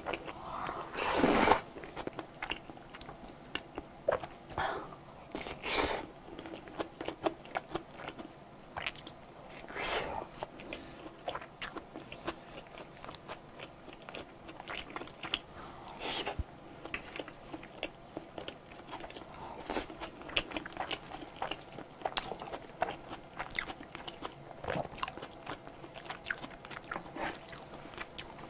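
Mouth sounds of a person eating creamy wide-noodle pasta and hamburger steak: steady wet chewing with many small smacks and clicks, and a few louder mouthfuls about a second in and again around six and ten seconds.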